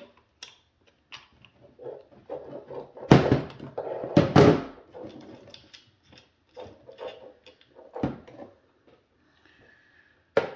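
Clicks and knocks from handling a car side-mirror assembly and hand tools, with two loud clunks about three and four seconds in and another near eight seconds.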